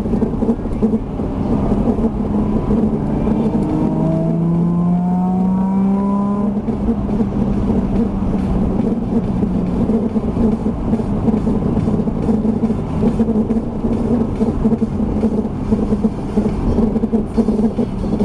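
A Nissan Z33 running with a steady rumble. About two seconds in, a whine starts and rises in pitch for several seconds, then holds and slowly fades. It is an abnormal noise that the owner finds grating.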